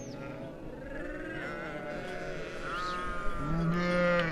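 A flock of sheep bleating, many calls overlapping one another, with one loud, low-pitched bleat near the end.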